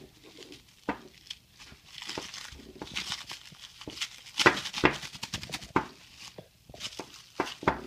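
Green plastic wrap crinkling and rustling as it is pulled off a part by hand, in irregular crackles that grow louder about four and a half seconds in.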